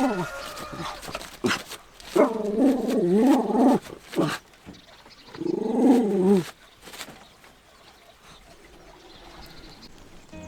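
A dog howling: two long, wavering calls that rise and fall in pitch, with a few sharp knocks between them.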